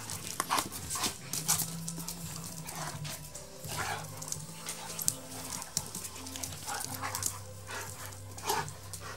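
Dog sounds in short, scattered bursts over background music with held low notes.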